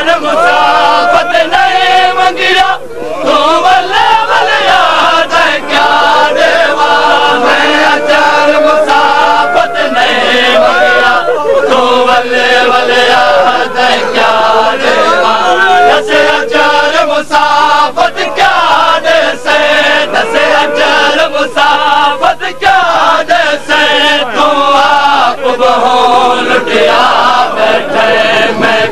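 Crowd of men chanting a Punjabi noha in chorus, with sharp strikes of matam, hands beating on chests, repeating at a fairly regular pace along with the chant.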